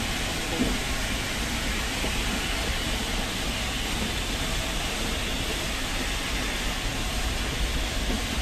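Steady rumble and rushing noise of the moving Nilgiri Mountain Railway toy train, heard from on board, with a deep low rumble underneath and no distinct clanks or whistles.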